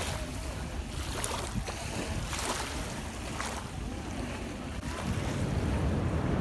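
Small waves lapping and washing over sand at the shoreline, with a few sharper splashes in the first few seconds. From about five seconds in, wind buffets the microphone with a growing low rumble.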